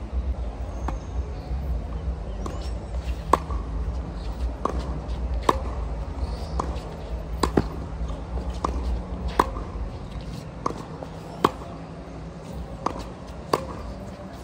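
Tennis rally on a hard court: tennis balls struck by rackets and bouncing off the court, sharp pops about once a second, over a low rumble.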